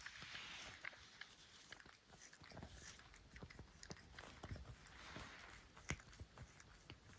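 Scottish Fold cat grooming itself, faint and close: small wet licking and nibbling clicks scattered irregularly, with a few soft hissy passages.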